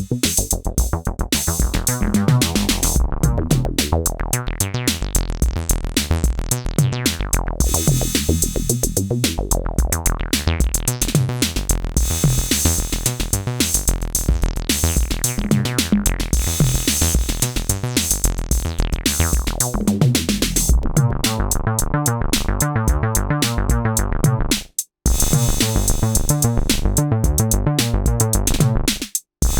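Synthesizer bassline played over an electronic drum machine beat, with a steady repeating pattern and strong low bass notes. The music cuts out briefly twice near the end.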